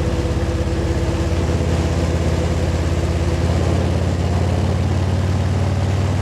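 Harley-Davidson Ultra Limited's V-twin engine running steadily at a cruising speed of about 80 km/h, with wind rushing over the rider's jacket-mounted wireless mic.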